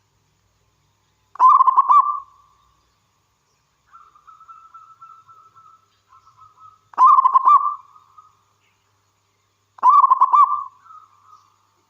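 Zebra dove (perkutut) singing: three loud, fast stuttering coo phrases, a few seconds apart. Softer rolling trills sit between them.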